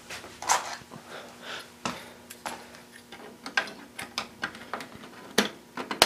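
Handling noise of a metal desktop computer case as its side panel is fitted and fastened: a run of sharp clicks and knocks with scraping in between.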